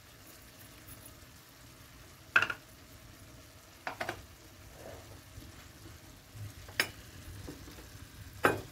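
Chicken, onions and raisins sizzling faintly as they cook in a clay tagine. Five sharp clicks or knocks break through, the loudest about two and a half seconds in, two close together near the middle and two more near the end.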